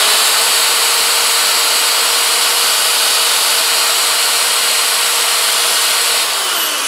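Black & Decker drill spinning a World's Finest Trimmer as it cuts a .223 case down to .300 Blackout length: a loud, steady whine over the hiss of brass being cut. About six seconds in, the pitch falls as the drill winds down.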